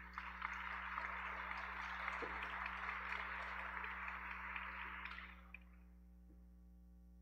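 Congregation applauding: a few separate claps build into dense clapping that dies away about five seconds in.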